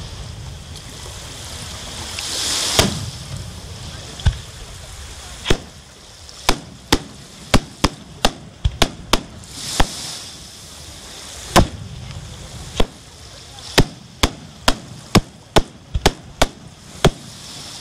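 Fireworks display: aerial shells going off in a long irregular series of sharp bangs, about twenty in all, coming faster in two clusters later on. A swell of hiss twice rises and ends in a bang.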